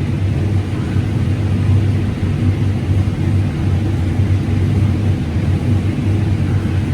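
Combine harvester running steadily while harvesting corn, a constant low engine and machinery hum.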